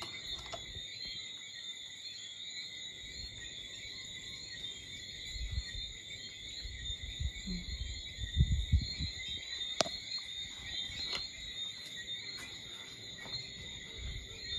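Steady, high-pitched night chorus of insects and frogs. Low thuds on the microphone come in a little past the middle, and there is a single sharp click near ten seconds in.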